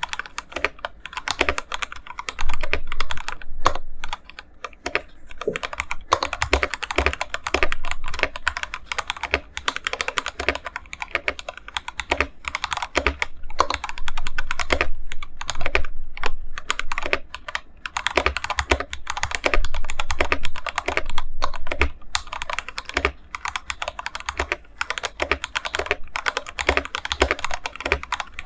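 Fast typing on an IQUNIX F97 mechanical keyboard with TTC Gold Pink linear switches and Ducky keycaps: a dense run of key clacks with brief pauses between bursts.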